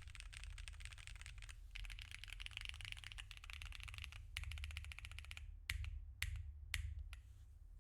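Fast typing on a mechanical keyboard fitted with tactile switches: a dense run of rapid keystrokes, then a few separate, louder key presses about six to seven seconds in.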